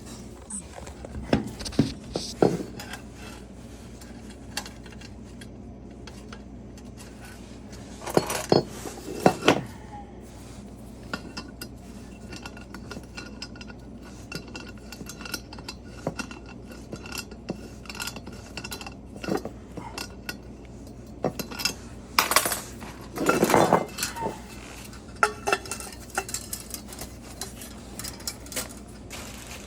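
Hand tools and metal parts clinking and clattering at irregular moments, as work goes on at the boiler, with the loudest clusters about eight seconds in and again near twenty-three seconds, over a steady low hum.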